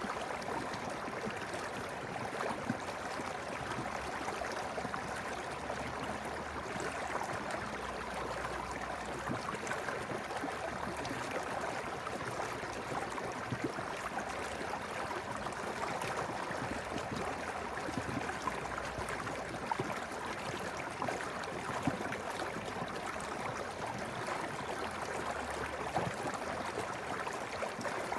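Stream water flowing: a steady burbling rush with occasional brief louder splashes.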